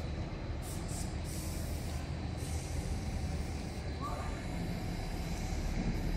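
Diesel truck engine idling with a steady low rumble, with a couple of short hisses about a second in.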